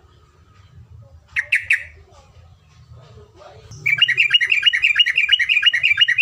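Terocok singing: a short burst of three quick notes about a second in, then from about four seconds a long, rapid rolling run (ropelan) of repeated notes at about eight a second.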